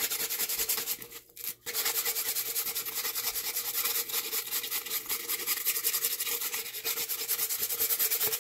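180-grit sandpaper rubbed by hand in rapid back-and-forth strokes over the cured epoxy-and-glitter coat on the rim of a stainless steel tumbler, knocking down sharp glitter pieces before the final epoxy coat. Really loud, with a brief pause about a second in.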